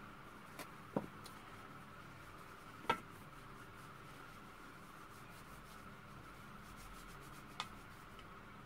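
Fingers peeling the shell off a boiled egg: faint rubbing and scratching of shell, with a few sharp clicks, the loudest about three seconds in.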